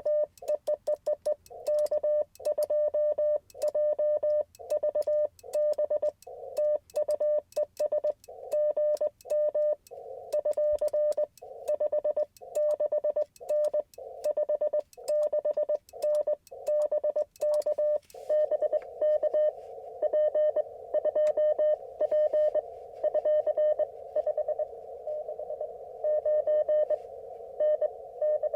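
Morse code (CW) from an Icom IC-705 ham transceiver: one steady mid-pitched tone keyed in dots and dashes, the memory keyer sending on repeat. From about ten seconds in, a narrow hiss of band noise fills the gaps between the tones.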